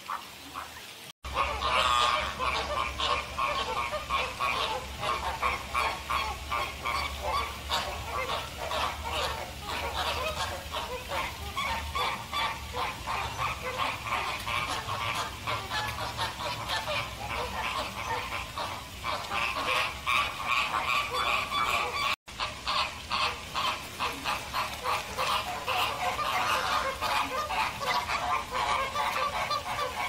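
A flock of American flamingos calling nonstop, many short calls overlapping into a continuous chatter. The sound drops out briefly twice, about a second in and again later on.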